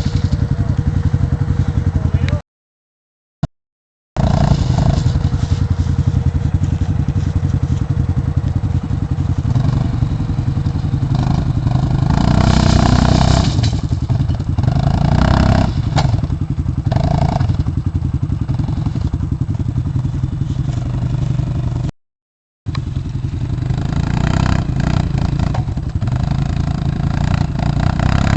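ATV engine running close by, with clatter and scraping over rough ground. The sound cuts out to silence twice, briefly.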